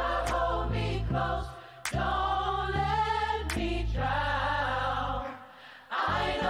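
Gospel choir singing sustained chords in unison over low bass notes. The sound drops away briefly twice, then comes back in full.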